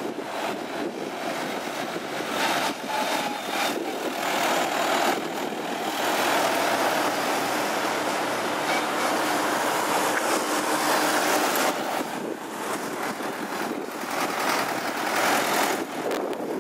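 Vintage tractor engines running as the tractors drive past one after another, loudest through the middle of the stretch.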